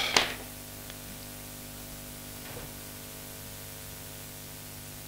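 Steady room tone: an even hiss with a low electrical hum. There is one sharp click just after the start.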